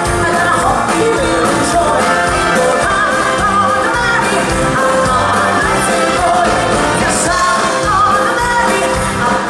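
A woman singing live with a country band, her voice gliding and holding notes over the full band.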